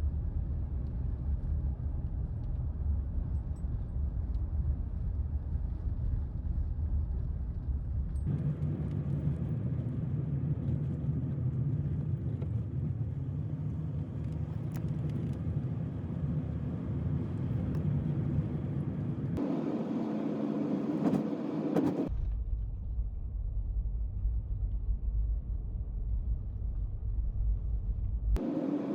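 Van driving on the road: a steady low rumble of engine and road noise that shifts abruptly in character several times.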